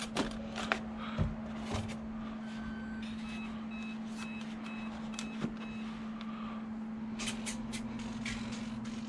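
Start-up beeps from the jet's brushless ESC after the flight battery is plugged in: one short tone, then a row of about seven short, evenly spaced high beeps, over a steady low hum. Scattered light clicks come before and after the beeps.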